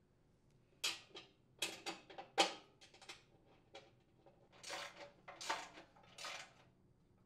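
Metal clinks and clatter as small hardware and sheet-metal parts of a chipper shredder are handled: a run of sharp clicks about a second in, then three longer, noisier handling sounds of about half a second each.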